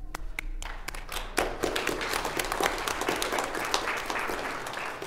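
A congregation applauding, many hands clapping together. It swells about half a second in and thins out near the end.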